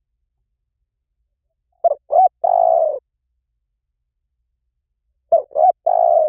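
Spotted dove cooing: two identical phrases about three and a half seconds apart, each of two short notes followed by a longer, drawn-out coo.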